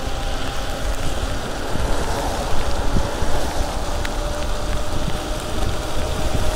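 E-bike riding along a wet road in the rain: a steady rush of wind on the microphone and tyres hissing on the wet pavement, with a few small pops as the tyres roll over debris in the bike lane.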